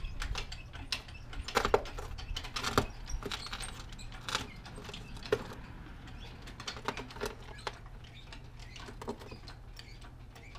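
Irregular metallic clinks and rattles of hands-on garage work, with a few sharper knocks in the first half, over a steady low hum.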